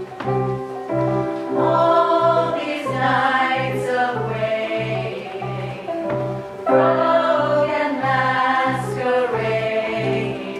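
A choir singing over a steady pulsing low note. The voices swell in strongly about two seconds in.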